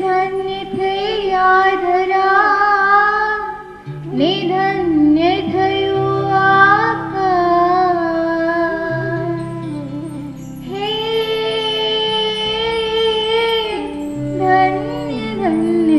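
Background song: a high voice sings a wavering melody over steady low accompaniment, with a short break about four seconds in and one long held note in the second half.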